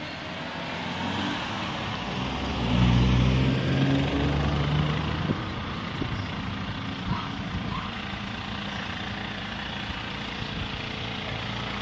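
A small hatchback car drives past close by, its engine hum and tyre noise swelling to a peak about three seconds in and then fading. A steady low engine hum continues after it.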